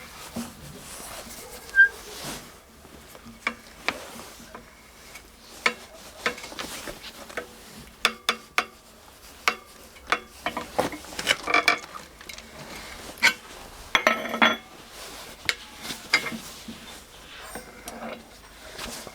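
Small metal lure parts, a coin blade and wire hardware, clinking and tapping at irregular intervals as they are handled, some clicks with a brief metallic ring. The clinks come in quicker clusters past the middle.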